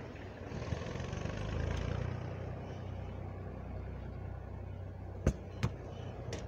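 A football is kicked: two sharp thumps about a third of a second apart, about five seconds in, over a steady low rumble like a distant engine.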